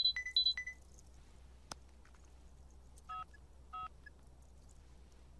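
Motorola mobile phone sounding: the tail of a quick run of high chirping alert beeps for an incoming text message in the first second, then two short keypad beeps, about three and four seconds in, as the message is opened.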